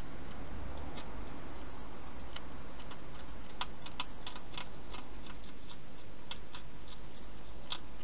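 European hedgehog eating from a bowl: irregular small crunching clicks of chewing, thickest about halfway through, over a steady hiss.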